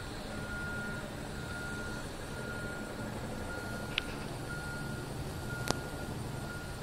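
Radio-controlled helicopter running in flight, a steady hum from its motor and rotors. A thin high tone keeps breaking off and coming back, and there are two sharp clicks, about four seconds and under six seconds in.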